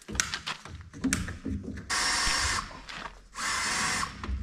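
Power drill running in two short bursts, the second a little longer, as a hole is drilled into an engine oil filter to drain the oil out. A few knocks come before the drill starts.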